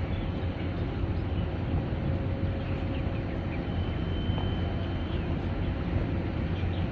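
Harbour ambience: a steady low rumble, with a faint high whistle for about a second and a half past the middle.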